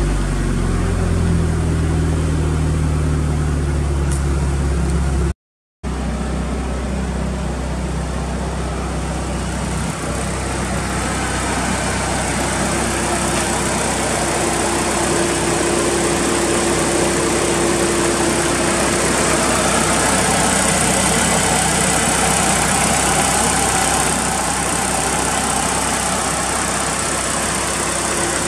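Mitsubishi Lancer Evolution VIII's turbocharged 2.0-litre 4G63 four-cylinder engine. At the tailpipe its revs fall back to idle at the start, then it idles steadily. After a brief cut it idles on, heard from the open engine bay with more mechanical hiss and a faint steady tone.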